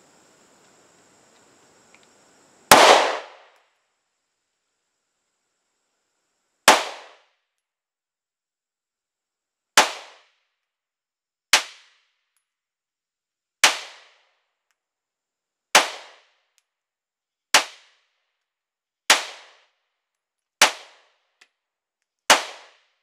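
Polymer 80 Glock 19 9mm pistol firing ten single shots in slow, aimed fire, one every two to four seconds, the first about three seconds in. Each shot is a sharp crack with a short fading tail.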